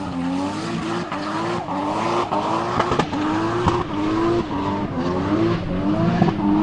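Opel Omega's swapped Toyota 2JZ straight-six screaming at high revs in a tyre-smoking drift. Its pitch climbs and cuts back with a sharp crack about every two-thirds of a second, and the tyres squeal.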